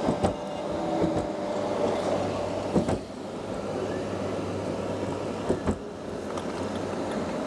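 Steady vehicle running noise with a low hum, broken by a few sharp knocks and bumps: one just after the start, one near three seconds and a pair about five and a half seconds in.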